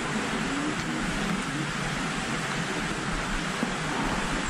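Steady rush of running water from a pond's outflow into a creek.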